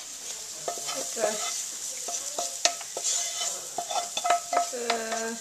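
Leeks, red onion, garlic and roasted squash sizzling in butter in a pot while a utensil stirs them, clicking and scraping against the pot again and again.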